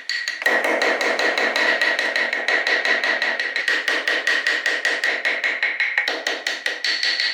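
Rapid, evenly spaced hammer-like strikes of a tool on wood, about eight a second, with a steady high ringing tone under them.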